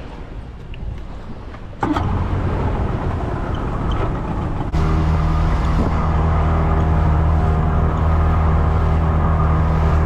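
Boat motor running at a steady pitch under wind noise, suddenly louder about two seconds in and again about halfway through, then holding a steady hum.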